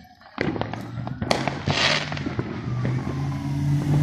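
Fireworks popping and crackling, with a short hissing burst about two seconds in. From about halfway a car engine runs and grows louder underneath.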